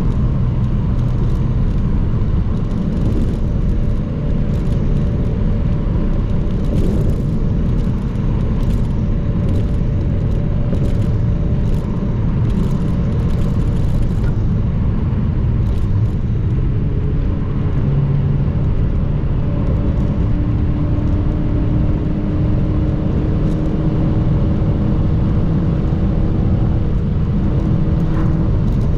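Honda Civic EG5's engine and aftermarket exhaust under spirited driving, a raspy, blatty note running continuously at a fairly steady pitch.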